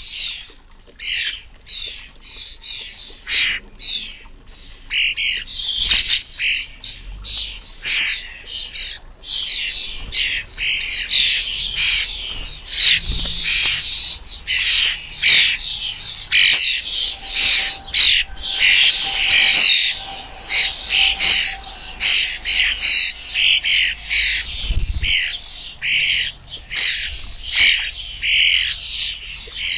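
Fledgling common starlings begging to be fed by their parents: short, high calls repeated several times a second, on and on without a pause.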